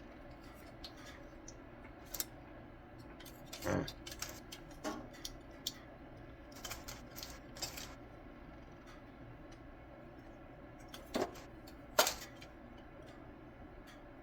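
Irregular clicks, taps and knocks of plastic headlight parts being handled and pried apart by hand, with a few louder snaps about four seconds in and again near the end.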